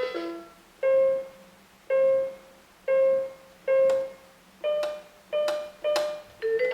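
Single keyboard notes with a piano-like tone, played one at a time, about one a second. The first four are on the same pitch and the last three are a step higher, each note ringing and fading before the next.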